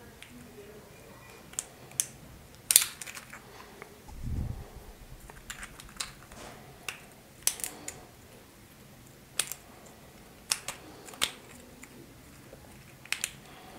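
Irregular sharp clicks and clacks of 3D-printed plastic gear pieces being handled and pressed together by hand, with a soft low thud just past four seconds in.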